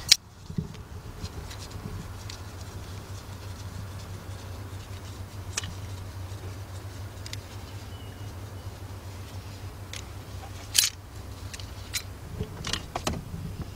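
Scattered light metallic clicks and taps of locking pliers (vice grips) being handled, the sharpest right at the start and about eleven seconds in, over a steady low hum.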